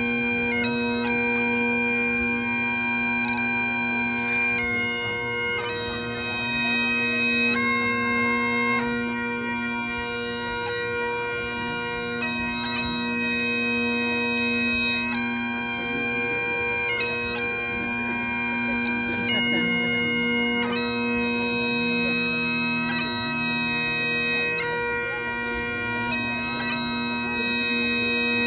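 Great Highland bagpipes playing a slow tune: a steady drone under a chanter melody of long held notes that change every second or two.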